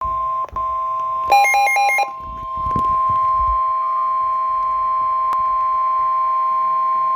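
Weather radio emergency alert tone for a severe thunderstorm warning: a loud, steady electronic alarm tone, broken for an instant about half a second in. A short run of rapid, harsh beeps sounds over it about a second and a half in. The tone signals that a warning message is about to be read.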